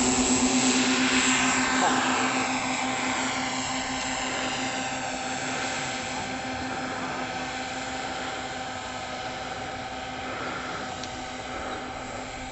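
Electric motors and propellers of a scale radio-controlled Staaken R70 WWI bomber model running at a steady pitch as it takes off and flies, the hum fading gradually as the model climbs away.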